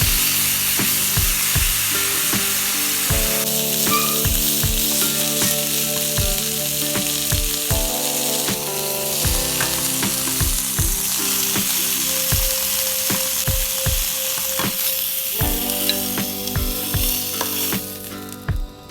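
Beef sizzling and frying in a hot pan, over background music with a steady beat; the sizzling drops away near the end.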